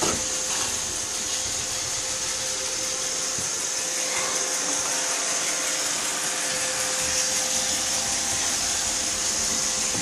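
iRobot Roomba robot vacuum running on a hardwood floor: a steady whir of its motors and brushes with a thin, steady midrange whine and a high hiss.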